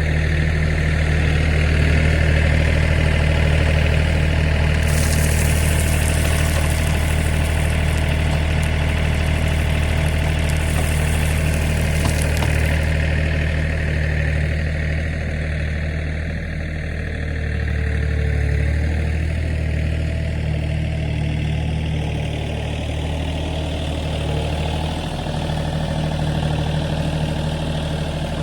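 An engine running steadily at idle throughout. A hissing noise comes in about five seconds in and stops about eight seconds later.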